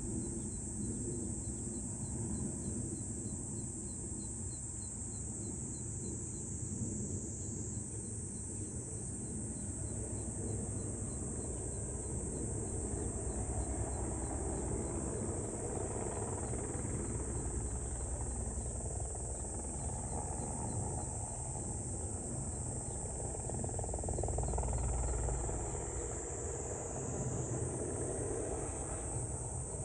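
A steady, high-pitched insect chorus of crickets or cicadas, with a faint rapid ticking. Underneath is a low rumble that swells and fades a couple of times.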